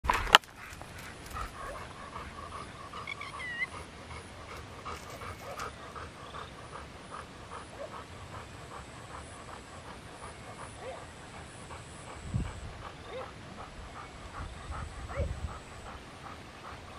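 A dog panting steadily, about two to three breaths a second, with a brief whimper about three seconds in. A sharp knock right at the start.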